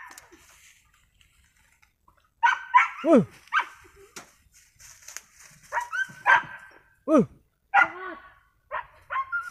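Tracking dogs barking on a civet hunt. After one bark at the start and a pause of about two seconds, the barking comes in repeated short bursts, some sliding down in pitch like yelps.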